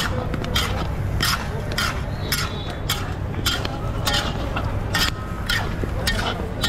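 Flat iron blade stirring popcorn through hot salt in a large iron kadhai: a gritty scrape of salt and popcorn against the metal with each sweep, about three sweeps every two seconds. Under it runs a steady low rumble.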